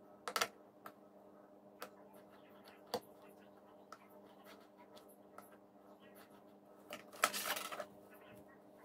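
Craft knife drawn along a steel ruler to cut a slit in leather on a plastic cutting board: a few faint, sharp clicks and scrapes, then a louder scraping rustle near the end as the ruler and leather are handled.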